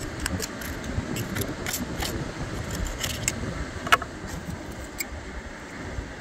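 Steady rush of surf and wind, with scattered sharp clicks of oyster shell and knife being handled and one louder click about four seconds in.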